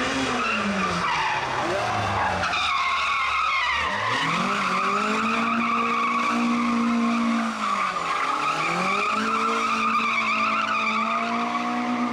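Rally car engine revving hard, its pitch climbing and dropping with throttle and gear changes and dipping twice as it lifts off, with tyres squealing and skidding.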